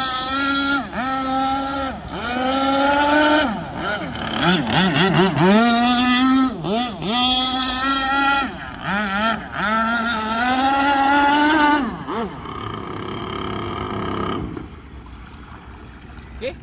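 Zenoah 32cc two-stroke gasoline engine of an RC speedboat running at high revs, its pitch rising and falling again and again as the throttle is worked on fast passes. About twelve seconds in it eases off, and near the end it drops to a much quieter low-speed run as the boat slows.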